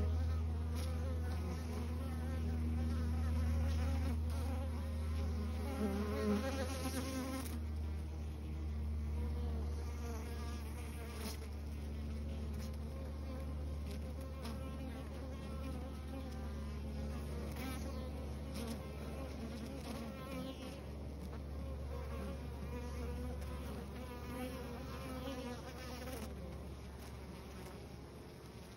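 Honeybees buzzing at a hive entrance, a steady, loud buzz that the uploader traces to drones (male honeybees) flying in and out, with the higher whine of single bees wavering over it. The buzz fades somewhat near the end.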